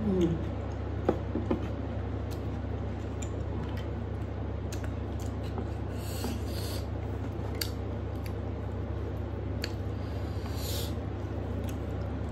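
Fingers mixing rice and curry on a steel plate and eating, with soft rubbing and squishing, a few light clicks and some chewing. A steady low hum runs underneath.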